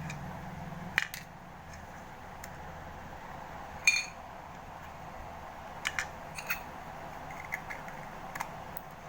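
Scattered small clicks and taps of hard objects being handled, the loudest a sharp clink with a brief ring about four seconds in, then a run of lighter clicks, over a steady low hum.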